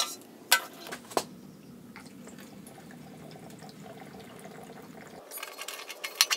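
Gasoline pouring from a plastic jerry can through a funnel into a motorcycle's fuel tank, a steady faint trickle for about three seconds. A few sharp knocks at the start as the funnel and can are handled, and more clattering near the end.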